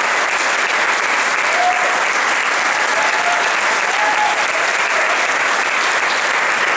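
Audience applauding steadily, with a few faint voices briefly heard in the crowd.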